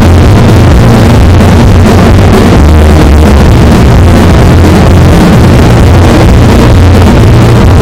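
Heavily clipped, bass-boosted audio at full loudness: a deep bass stepping between pitches under harsh distorted noise.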